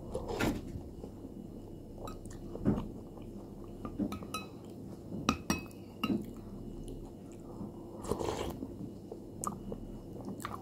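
Close-up eating: spoonfuls of cornflakes in milk taken into the mouth and chewed, with a metal spoon clinking against a glass bowl several times.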